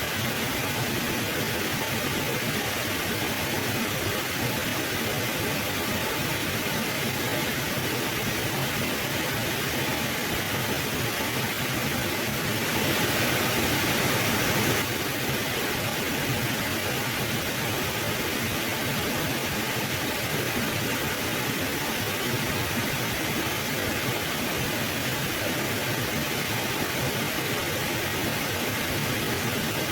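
Steady rushing of a flowing mountain river, with a brief swell for a couple of seconds about halfway through.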